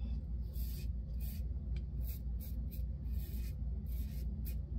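Timeless 0.68 titanium double-edge safety razor scraping through lathered stubble on the cheek in short, quick strokes, about three a second, over a steady low hum.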